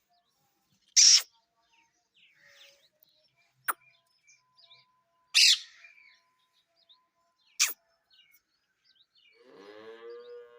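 Parrots giving short, loud, high-pitched screeching calls, three times in all, with a sharp click between the first two and a lower, voice-like call near the end.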